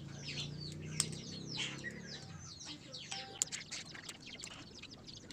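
Small birds chirping over and over in quick downward-sweeping calls, with a few sharp clicks of a tool on the metal of a motorcycle brake master cylinder as a retaining clip is pushed into it.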